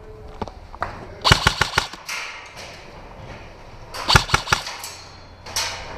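Airsoft guns firing in three short rapid bursts of a few shots each: about a second in, around four seconds in, and near the end.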